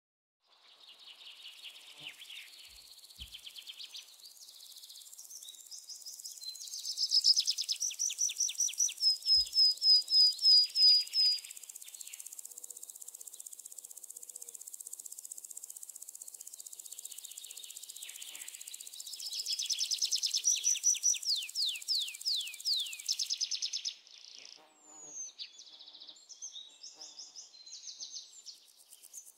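Birds singing long, fast trills of rapidly repeated chirps over a steady high hiss. The song swells twice, and about three-quarters through the hiss cuts off, leaving short scattered chirps.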